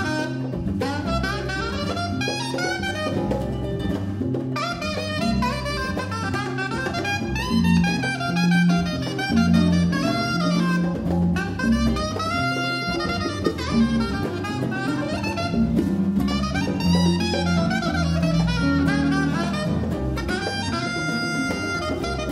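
Live jazz: a saxophone plays a winding melodic line over acoustic guitar, bass guitar and congas.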